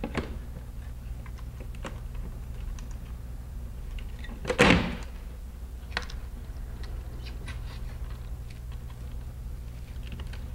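Small plastic clicks and knocks of a backup battery and its lead wire being pressed into the plastic front case of a Honeywell L5100 alarm panel, with one louder scraping thunk about four and a half seconds in and a sharp click just after. A steady low hum runs underneath.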